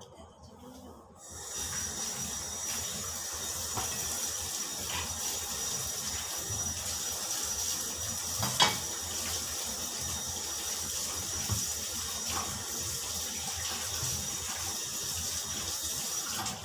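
Tap water running steadily into a sink while sponge gourd pieces are rinsed under it. It starts about a second and a half in and cuts off at the end, with one sharp knock about halfway through.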